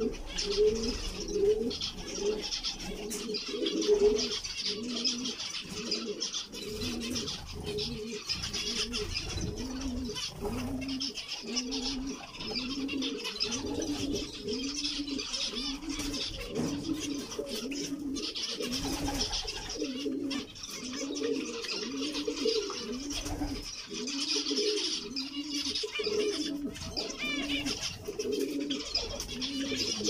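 Low cooing of a dove repeated steadily about once a second, over a continuous high twittering chatter of zebra finches.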